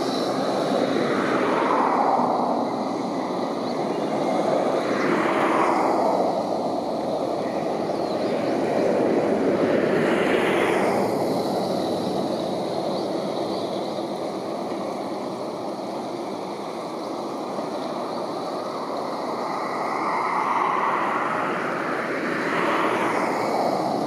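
Steady noise of vehicles passing, swelling and fading as one after another goes by every few seconds.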